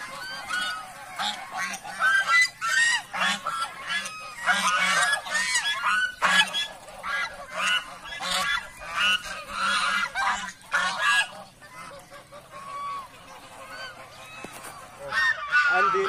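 A flock of domestic geese honking, many short overlapping calls in quick succession that thin out about three quarters of the way through.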